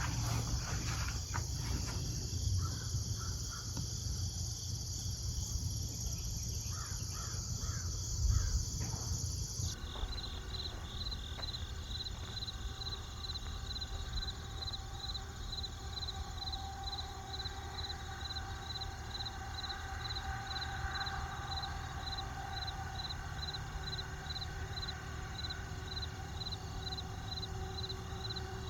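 Insects calling: a steady high-pitched chorus at first, then after an abrupt change about ten seconds in, a regular chirping about two to three times a second.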